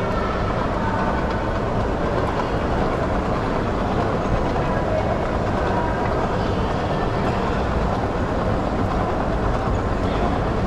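Airport moving walkway running, a steady low rumble from its moving tread, with a hard-shell wheeled suitcase rolling along on it.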